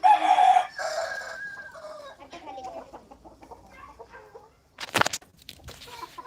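Gavran (desi) chickens: a rooster crows loudly for about two seconds at the start, then hens cluck in short scattered calls. A brief sharp clatter comes about five seconds in.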